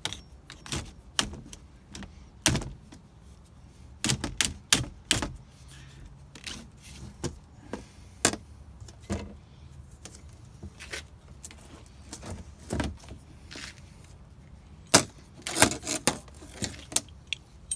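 Irregular clicks, taps and knocks of hand tools working on small plastic window hardware, with a louder cluster of knocks near the end.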